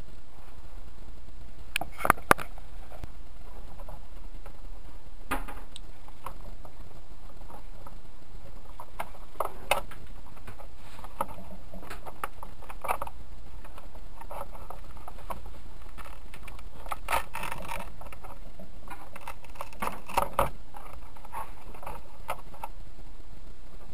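Handling noises from an R/C boat's plastic hull and its wiring and connectors: scattered light clicks and knocks over a steady background hiss. The sharpest are a double click about two seconds in, and another cluster comes near the end as a battery pack is fitted into the hull.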